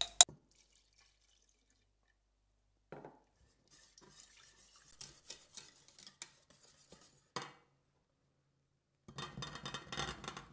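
Stainless steel cooking pot being worked: a sharp clink on the pot at the start, then a wire whisk tapping and stirring inside it, with a couple of knocks. Near the end, a clatter of whole gooseberries tumbling into the pot.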